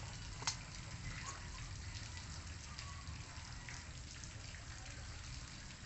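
Quiet, steady background hiss and low rumble, with one sharp click about half a second in.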